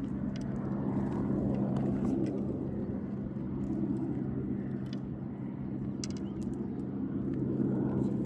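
A steady low engine hum that fades out about two to three seconds in, over a swelling low rumble, with scattered light clicks.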